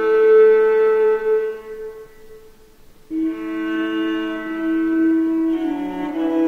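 Background music: a slow early-music instrumental piece with long held wind-instrument notes. It dies away about two seconds in, and a new held note enters about three seconds in.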